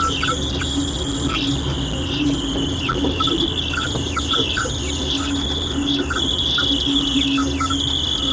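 Strange chirping, warbling noise from a radio receiver picking up an unknown signal: a steady high band of quick downward chirps with short blips, over an on-and-off low tone and a low hum.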